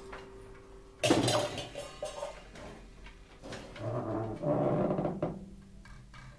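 Sparse free-improvised percussion: a sharp struck hit about a second in that rings on, a few softer clatters, then a swelling ringing passage with a low sustained tone around four to five seconds in.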